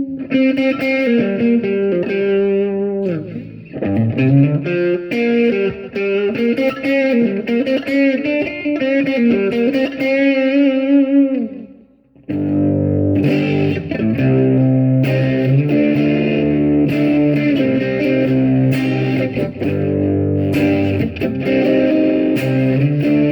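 Xavier PRO830 Tele-style electric guitar played through a Spark amp on a clean Fender-like tone with a little overdrive: single-note lines for the first half, a brief stop about halfway, then ringing chords.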